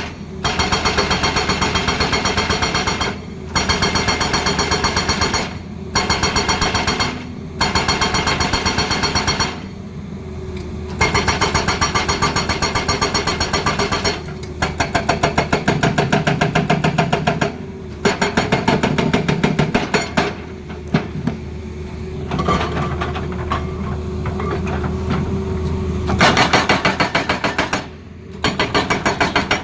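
Excavator-mounted hydraulic breaker hammering in rapid blows, in runs of a few seconds with short pauses between, over the steady running of the excavator's diesel engine.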